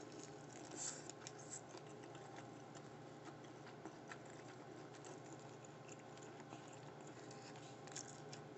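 Faint chewing of a mouthful of deep-fried sushi burrito: soft, scattered wet mouth clicks and ticks over a low steady hum.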